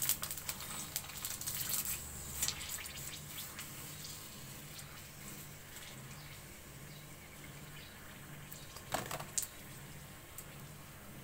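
Puris for panipuri deep-frying in hot oil in a metal kadai, crackling and sizzling, busiest in the first few seconds and settling to a steady hiss. A couple of sharp clicks about nine seconds in.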